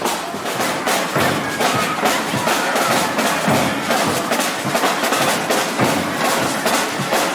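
Batucada samba percussion ensemble playing a fast, steady groove: many drums struck together with sharp, clicking hand-percussion strokes on top.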